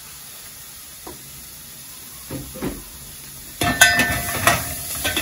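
Beef stew hissing faintly in a pot on the burner, then from about three and a half seconds in a metal spoon stirring and clinking against the pot, the strikes ringing briefly.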